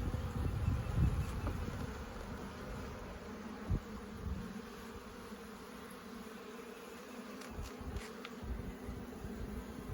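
Honey bees buzzing in a steady hum around an opened hive, a colony stirred up and getting defensive. Low rumbling in the first second or so, and a single knock near four seconds in.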